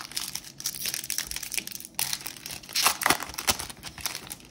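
A Topps baseball-card pack wrapper being torn open and crumpled: irregular crinkling and crackling, loudest about three seconds in.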